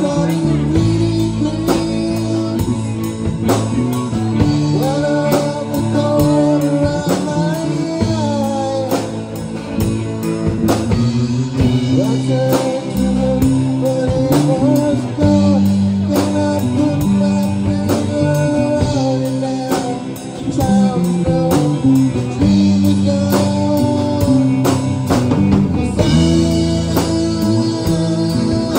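Live rock band playing a slow song: electric guitars, bass guitar and drum kit, with a lead melody of long, bending notes over the chords.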